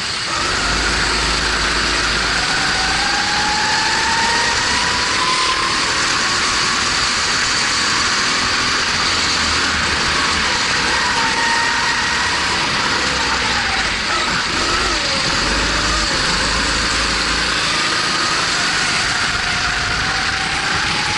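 Racing kart's single-cylinder Honda GX270 four-stroke engine under race load, its pitch climbing for a few seconds along the straights and dropping into the corners, over a steady rushing noise.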